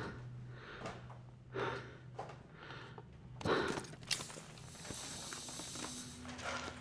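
A person's heavy, uneven breathing, a breath about every second, over a low steady hum of ship ambience. About four seconds in a high hiss starts and runs for about two seconds.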